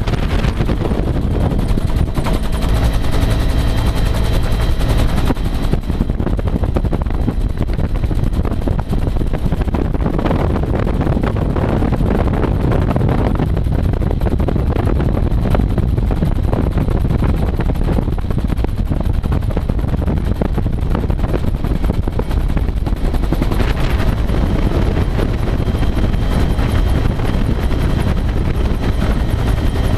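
Bell UH-1 Huey helicopter in flight, heard from inside the cabin with the doors open: the two-bladed main rotor beats rapidly and steadily over the rumble of the turbine engine, with a thin high whine coming and going.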